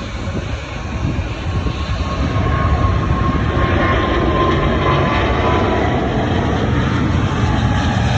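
Jet airliner engines, a loud broad rumble that builds over the first few seconds and then holds steady, with a faint whine that dips slightly in pitch midway.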